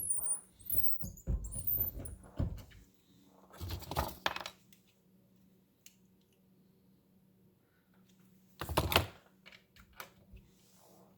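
Metal clinks and clunks from handling a cartridge and working a reloading press while setting a bullet-seating die: a cluster of small clicks at first, a rattle about four seconds in, and the loudest short clatter near nine seconds.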